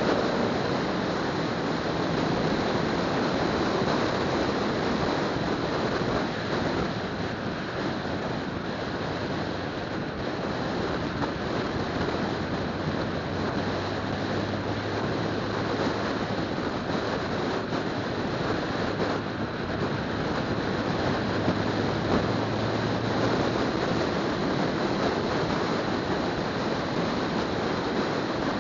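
Steady rush of wind and tyre noise from a car driving along a road, with a faint low engine hum underneath.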